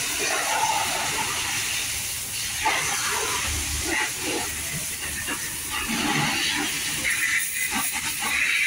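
Steady hissing noise of a spray, with no clear engine or voice.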